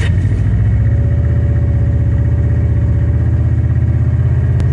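Car engine idling steadily and loudly, with an even, rapid low rumble of firing pulses at a constant pitch.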